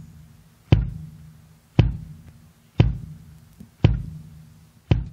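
Looped kick drum sample hitting about once a second, each beat followed by a low ring that dies away before the next, with the Presonus ACP88's compressor switched in on the channel.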